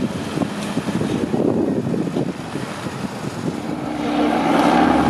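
Heavy off-road trial truck's diesel engine working, a rough low rumble that settles into a steady, louder drone as the revs come up about three and a half seconds in.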